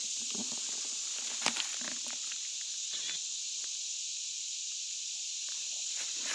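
Steady, high-pitched drone of insects in summer woods, with a few footsteps crunching in dry leaf litter during the first two seconds, then no footsteps.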